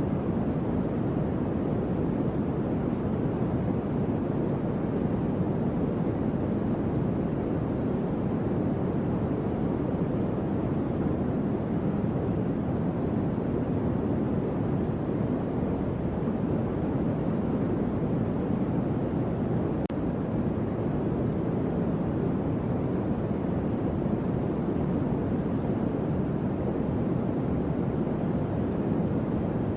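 Electric fan running steadily: an even, low whooshing rush of air with no change in pitch or level.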